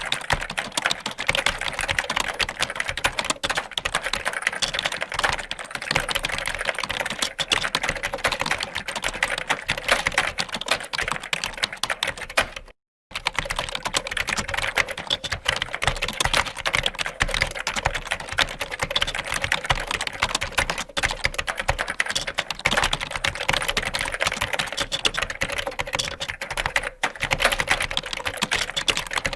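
Fast, continuous typing on a computer keyboard, a dense run of key clicks, cut off by a brief dead silence about 13 seconds in before the typing resumes.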